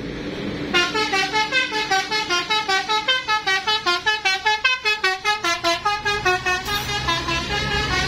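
Bus 'telolet' musical air horn of the Basuri type playing a fast melody of short, chord-like notes, several a second, starting just under a second in and stopping about seven seconds in.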